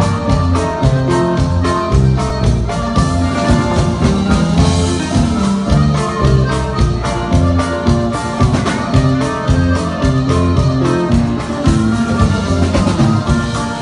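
Live norteño band playing an instrumental passage, with electric guitar over a steady drum and bass beat, amplified through a hall's PA.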